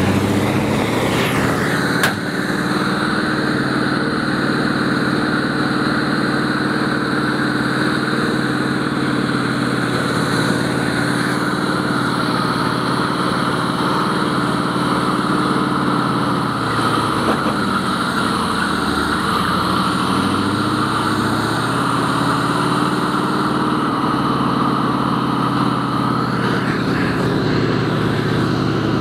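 M3A1 Stuart light tank's engine running under load with its tracks rolling as it drives over a field. The engine note falls off about two-thirds of the way through, then picks up again. One sharp crack about two seconds in.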